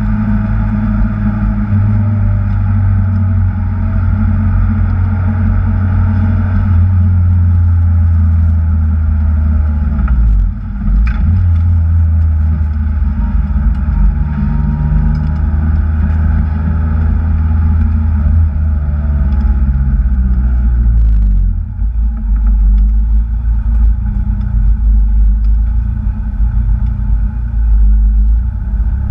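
Supercharged Acura TSX engine running hard through a run, its pitch rising and falling, with brief dips in level about ten and twenty-one seconds in.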